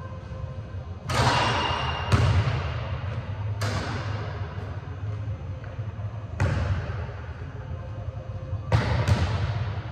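Basketball bouncing on a hardwood gym floor: six sharp single thuds spaced irregularly, one to three seconds apart, each ringing on in the hall's long echo. A steady low hum runs underneath.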